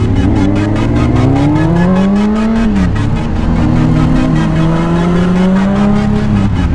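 Motorcycle engine accelerating hard: its pitch climbs for about two and a half seconds, drops sharply at a gear change about three seconds in, then pulls up again through the next gear. Electronic music with a steady beat plays throughout.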